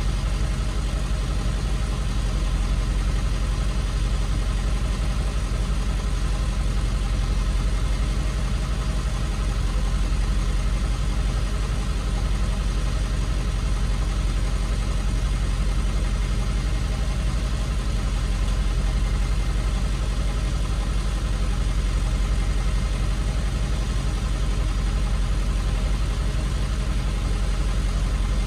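Tow truck engine idling steadily, a constant low drone heard from inside the truck's cab.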